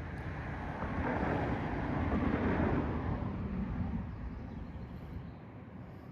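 A vehicle passing by, a broad rumble that rises to a peak about two and a half seconds in and then fades away.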